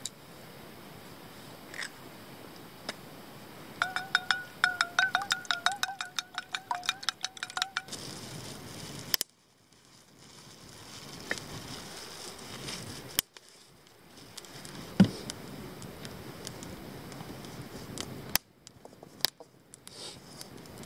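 Eggs beaten in a stainless steel bowl: a few seconds of rapid clicking over the bowl's ringing tone. After that, cooking over a wood campfire: a steady hiss with scattered knocks of utensils against the pan.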